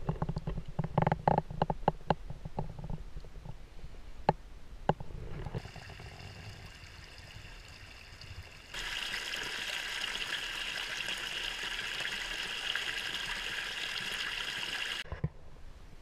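Small woodland brook running over stones, a steady rush of water that grows louder about nine seconds in and cuts off abruptly a second before the end. In the first few seconds, irregular knocks and clicks.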